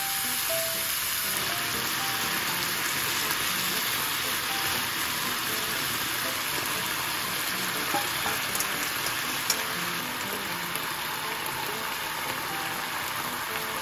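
Spicy pork stir-fry (jeyuk bokkeum) sizzling steadily in a hot frying pan, with a couple of light clicks about eight and nine and a half seconds in.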